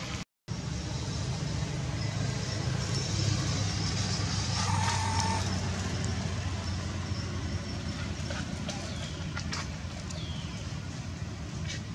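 Steady low rumble that swells around the middle and eases off, with a few faint, short high chirps near the end.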